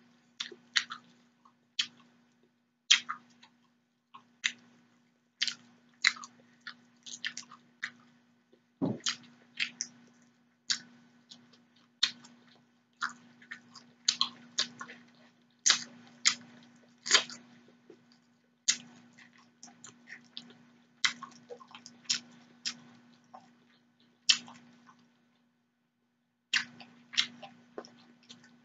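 Close-miked eating of shrimp noodles with vegetables: wet chewing and lip-smacking clicks in irregular sharp snaps, a few a second, over a faint steady hum. They pause for about two seconds near the end.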